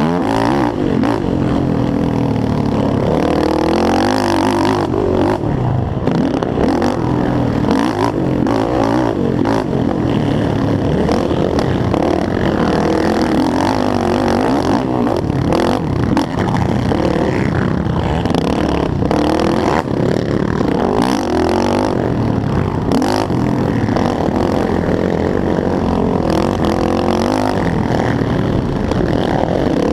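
Yamaha YFZ450R race quad's single-cylinder four-stroke engine revving hard under racing throttle, its pitch repeatedly rising and falling.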